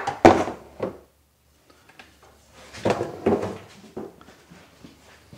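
Someone rummaging through a drawer of tools: loud clattering knocks at the start, a pause, then a shorter stretch of rattling and a few single clicks.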